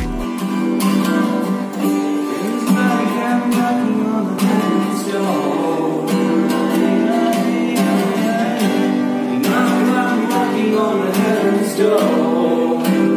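Acoustic guitar strummed in steady chords, with a man singing along.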